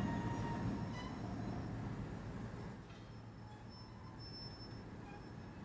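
HAA coal hopper wagons rolling slowly past at close range: a low, uneven rumble from the running gear with a couple of louder swells and a few faint metallic squeals. A steady high-pitched whine sits over it, and background music fades out in the first half-second.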